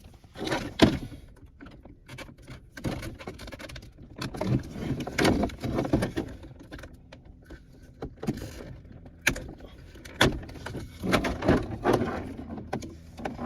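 Irregular plastic clicks, knocks and rattles from handling a car's removed center console trim and working at its retaining clips.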